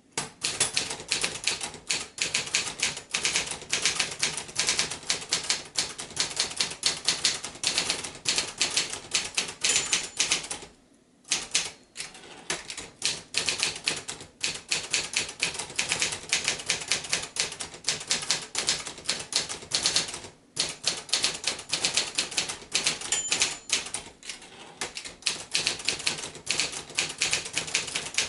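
1983 Sears Achiever (Brother JP-7) manual portable typewriter being typed on: a fast, dense run of key strikes, broken by a short pause about eleven seconds in and a shorter one about twenty seconds in.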